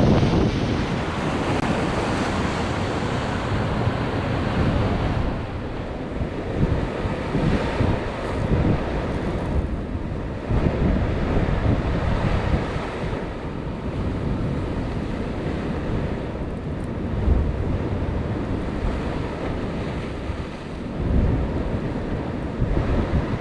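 Sea waves breaking on the shore, with wind buffeting the microphone in gusts.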